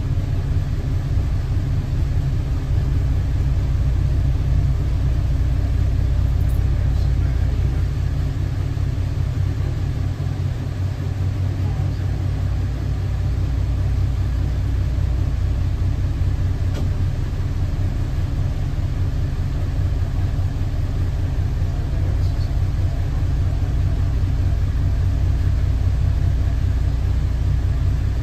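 Boat's engine idling with a steady low rumble.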